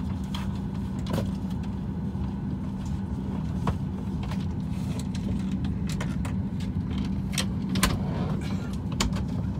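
Steady cabin hum inside a parked Boeing 737 MAX 8 before engine start: a low, even drone, with scattered light clicks and knocks.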